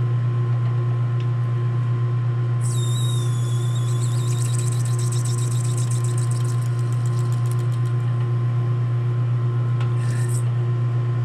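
Metal lathe running with a steady hum while a boring bar cuts inside the bore of the chucked workpiece. A couple of seconds in, the cut sets up a high squeal with chatter that fades out over a few seconds, and a brief squeal comes again near the end.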